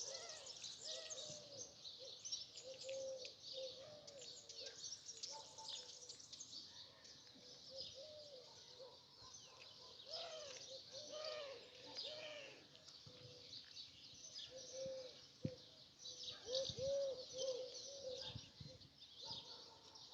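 Many small birds chirping in a busy chorus, over a low, repeated, soft cooing.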